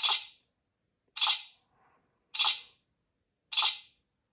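CSM Amazons Driver toy transformation belt playing an electronic sound effect through its speaker: four matching short pulses about a second apart, each fading quickly, the lead-in to a transformation.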